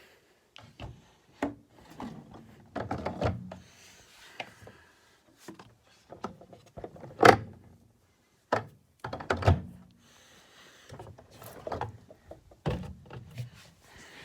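Plastic drink bottles clunking and sliding against each other and the shelves inside a mini-fridge as they are rearranged. The knocks and rubs are irregular, and the sharpest clunk comes about seven seconds in, with another about two seconds later.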